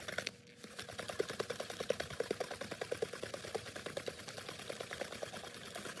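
Glass mason jar of rubbing alcohol and dead honey bees being shaken by hand, a quick, even rattle starting about half a second in. This is the shaking stage of an alcohol wash, done to knock varroa mites off the bees for a mite count.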